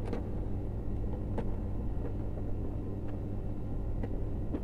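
A few faint clicks and rustles of hands twisting electrical wires together at a lamp holder, over a steady low hum.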